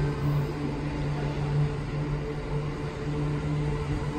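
A JR 209 series electric commuter train rolling past along the platform: a steady motor hum over the rumble of the wheels on the rails.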